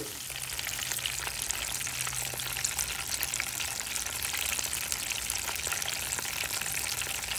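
Fish deep-frying in hot grease: a dense, steady sizzle and crackle with many small pops, over a low steady hum.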